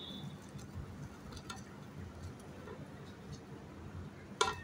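Faint light swishing and small clicks of fingers stirring salt into water in a steel bowl, with one short sharper sound near the end.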